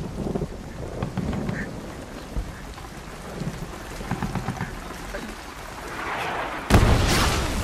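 Battlefield sound effects: a low, rumbling haze of distant explosions with scattered thumps. A rising rush near the end leads into one sudden loud blast.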